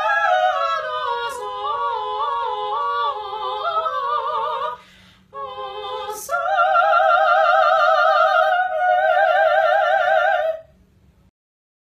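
A high operatic voice singing with strong vibrato: a falling phrase, a brief break, then one long high note held for about four seconds that stops sharply near the end.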